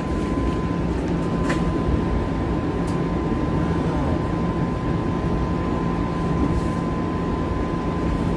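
Cabin noise inside a TTC Bombardier Flexity Outlook streetcar: a steady low rumble with a constant high hum from the car's equipment over it, and a couple of light clicks in the first few seconds.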